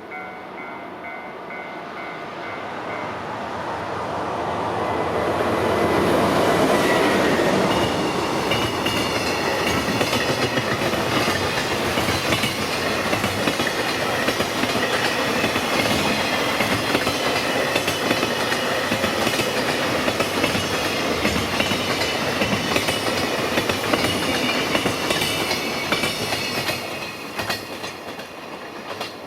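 JR Freight DF200 diesel-electric locomotive approaching and passing at speed, loudest about six to eight seconds in. A long rake of fully loaded container wagons follows, clattering over rail joints in a fast steady clickety-clack, and fades near the end.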